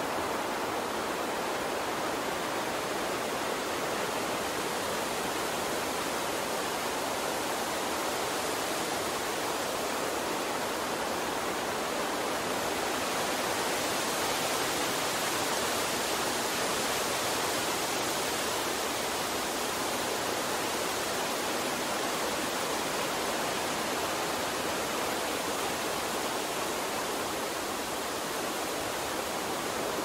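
Steady rushing noise, even throughout, with no tones or distinct events; a little brighter in the high end about halfway through.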